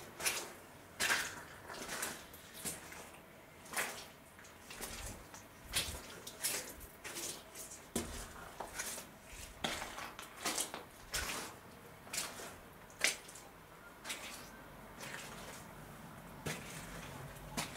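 Footsteps squelching and splashing through wet mud and puddles on a cellar floor: irregular steps, about one or two a second.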